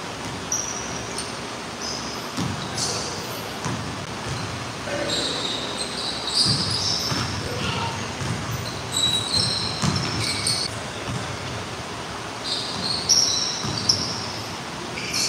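Basketball bouncing on a hardwood gym floor during a pickup game, repeated thuds, with sneakers squeaking in short high-pitched chirps and voices in the background.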